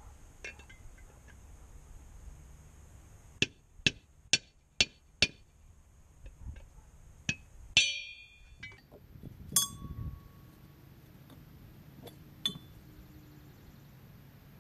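Metal striking metal: five quick, evenly spaced hammer blows about half a second apart, then scattered clinks and two ringing metallic clanks as steel tools or parts are handled.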